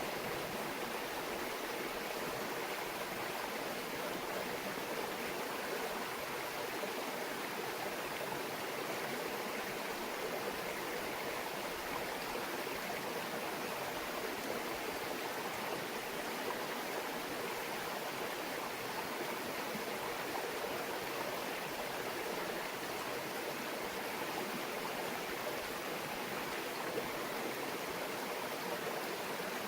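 A small mountain stream babbling steadily over rocks, an even rush of flowing water with no change in level.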